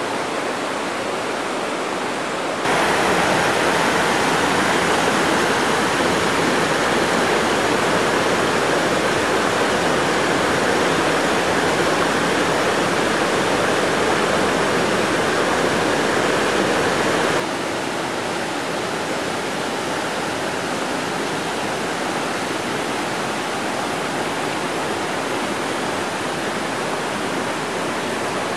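Mountain brook rushing over rock slabs and small cascades: a steady roar of water. It grows suddenly louder about three seconds in and drops back abruptly about seventeen seconds in.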